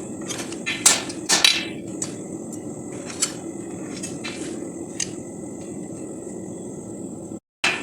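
A few separate hammer blows on steel, each ringing briefly, over a steady background hum with a thin high whine. The sound cuts out for a moment near the end, then fast, rapid hammering begins.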